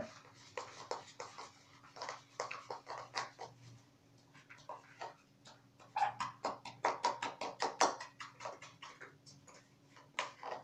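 Hair dye being stirred in a plastic mixing bowl: a quiet run of short, irregular clicks and scrapes of the mixing tool against the bowl, busier from about six seconds in.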